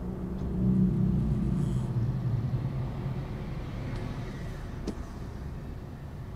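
Heavy truck's diesel engine rumbling as it pulls away, swelling about a second in and then fading into steady freeway traffic noise.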